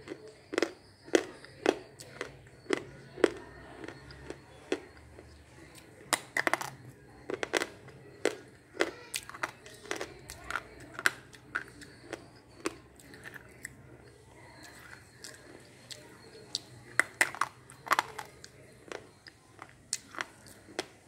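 A dry slate pencil being bitten and chewed up close to the mouth: a run of sharp, brittle crunches, about one or two a second, with a quieter stretch in the middle.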